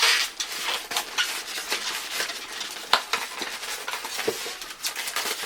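Handling noise from a solar dragonfly mobile being packed back into its box: continuous crackly rustling of the packaging with many small clicks and clinks of the dangling dragonflies.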